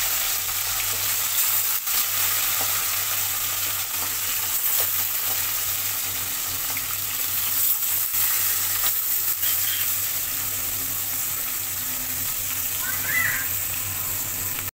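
Whole bata fish shallow-frying in oil in a metal kadai: a steady, dense sizzle, with a few light clicks as the fish are turned with a spatula.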